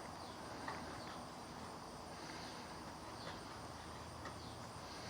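Faint background noise with quiet insect-like chirps about once a second.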